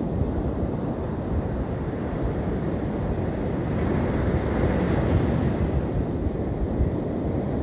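Sea surf washing onto a sandy beach, mixed with wind buffeting the microphone; the wash swells a little louder about halfway through.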